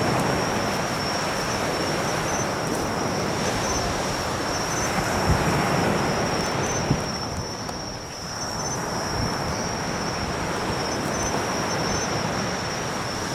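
Insects trilling in one steady high-pitched band over a steady rushing noise, with two faint knocks about five and seven seconds in.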